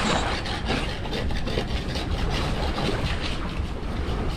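Hand scrapers rasping against the bottom of a dinghy in quick, irregular strokes, scraping off barnacles and seaweed, over a steady low rumble.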